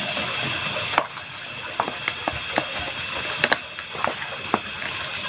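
A plastic tool scraping and stirring a crumbly fish-bait mix on a plastic tray, with irregular scrapes and sharp clicks over a steady faint hiss. The loudest knock comes about a second in.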